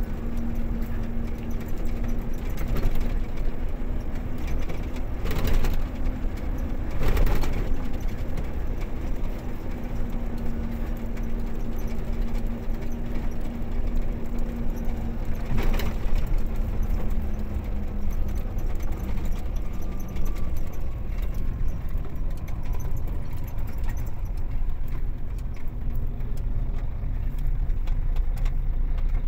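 Engine and road noise of a moving vehicle heard from inside its cab: a steady low rumble with an engine hum that fades out about two-thirds of the way through, and three short knocks in the first half.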